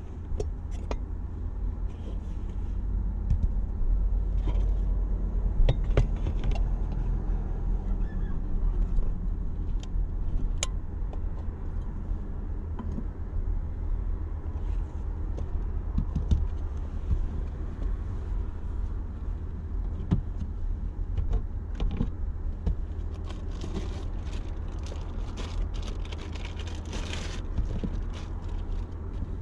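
Small clicks, knocks and clatter of cookware and belongings being handled and set down, over a steady low rumble. A denser run of clicks comes near the end, with a brief rustle.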